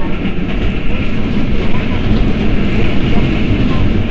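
Keikyu 1000 series electric train running, heard from inside the car: a loud, steady rumble of wheels on the rails along with the running noise.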